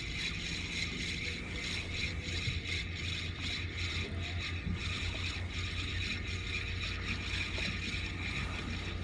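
Spinning reel cranked steadily, a fast fine whirring of its gears, winding in line on a tautog hooked in deep water. Under it runs a steady low hum.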